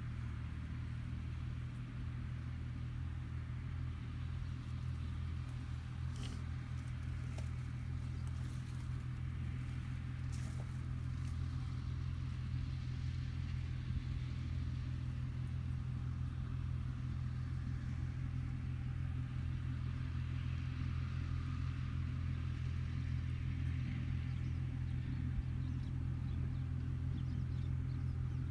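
New Holland TT55 tractor's diesel engine running steadily while mowing alfalfa, heard as a low, even drone that grows slowly louder as the tractor comes nearer.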